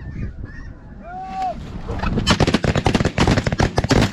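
Snow geese honking, then about halfway through a rapid volley of shotgun fire from several guns at once, shot after shot in quick succession.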